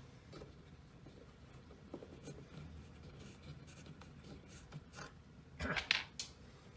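Faint scraping and small clicks of hand work on parts, with a louder scrape and clatter near the end.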